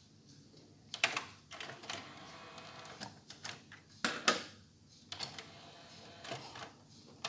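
Irregular mechanical clicks and clunks from a Panasonic cassette deck, its transport keys and mechanism being worked after playback has stopped.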